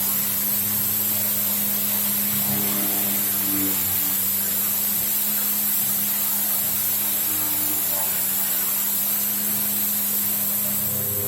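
Homemade CNC milling machine cutting D16T aluminium alloy with a 14 mm end mill at 4000 rpm under coolant: a steady spindle hum and cutting noise with a constant high hiss. The level holds even throughout, with faint changing tones as the cut goes on.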